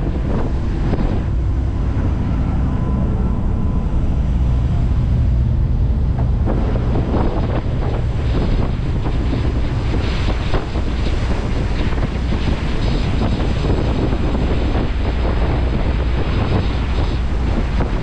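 Strong wind buffeting the microphone on the open deck of a moving tour boat, a steady rumble throughout, with the rush of the boat's wake and engine beneath it.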